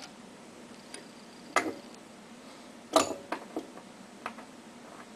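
Sharp metal clicks and clinks from an Allen wrench and screw hardware being worked against the pump shaft while the impeller hardware is unscrewed. Two louder clinks come about one and a half and three seconds in, with a few lighter ticks between.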